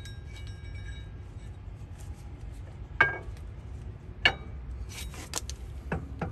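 Screwdriver clinking against the steel hub of a semi truck wheel end: a handful of sharp metal clinks, each with a brief ring, starting about halfway through and coming closer together near the end.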